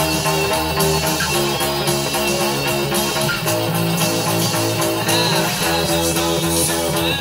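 Fender Precision Bass plucked with the fingers through a BOSS Katana-Air amp, playing along with a rock track of strummed electric guitars.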